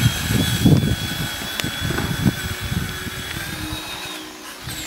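Traxxas Summit RC monster truck driving on a dirt trail: a steady high whine from its electric motor and drivetrain over low, uneven rumbling. The whine drops away about three and a half seconds in as the truck pulls off.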